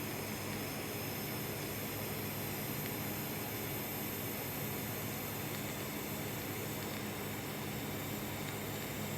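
Welding arc running steadily while a 5 mm fillet weld is laid: an even, unbroken hiss with a faint hum underneath.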